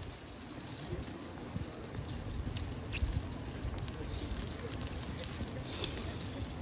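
Wind rumbling on the microphone, over faint crackling and sizzling of oysters grilling in their shells over a charcoal fire.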